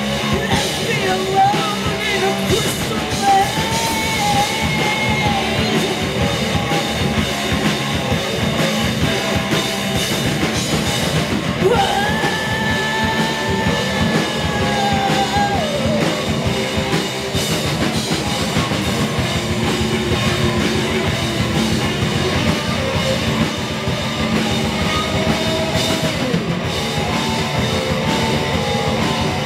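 Stoner rock band playing live at full volume: drum kit, distorted guitars and bass, with singing. A long note is held steady for about four seconds around the middle.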